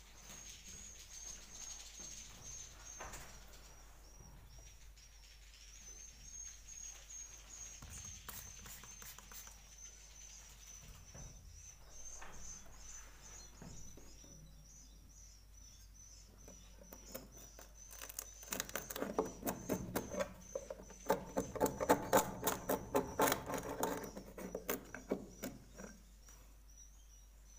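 Swiftlets chirping in a steady high twitter inside a swiftlet house. In the last third comes a louder run of rapid, rasping pulses.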